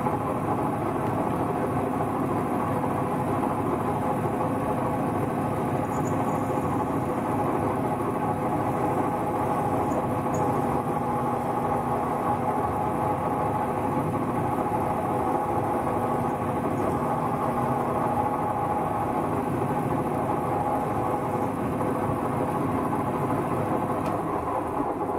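Logan 825 metal lathe running steadily, its motor, belt drive and spindle whirring as the cutter turns a piece of chisel steel.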